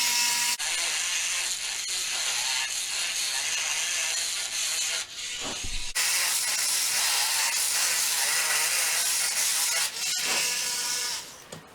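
Dremel rotary tool grinding out the centre hole of an aluminum bicycle shift-kit sprocket, widening it to take the axle. It is a steady high-pitched grinding that eases off with a thump about five seconds in, then starts again and stops near the end.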